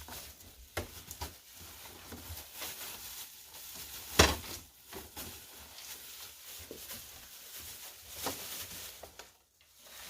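Cardboard box and packaging being handled: rustling, scrapes and light knocks, with one loud thump about four seconds in and a smaller one about eight seconds in.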